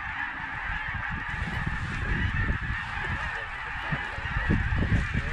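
Massed honking and cackling of a huge flock of Canada geese and snow geese circling over a decoy spread, merged into a steady continuous din. Irregular low rumbling on the microphone rises underneath, loudest near the end.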